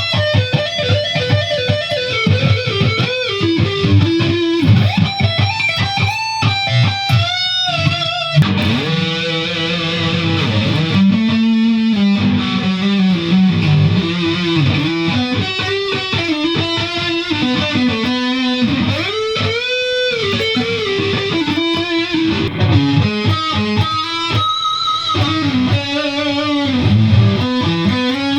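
Les Paul-style solid-body electric guitar, built from a kit, played amplified: picked single-note lines and chords with bent notes and a stretch of held low notes in the middle.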